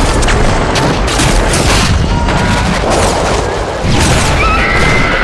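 Dense, loud gunfire and explosion booms over a heavy low rumble, with many sharp cracks in quick succession. Held high tones come in about four and a half seconds in.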